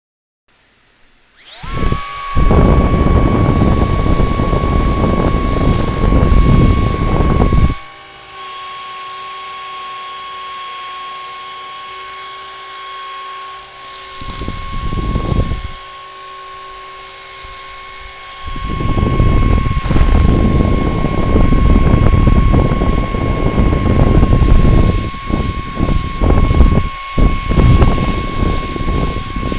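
Small electric motor starting about a second in and running with a steady high whine, its blown air rushing loudly over the microphone. The rush drops away for a long stretch in the middle, apart from one short gust, while the motor whine carries on.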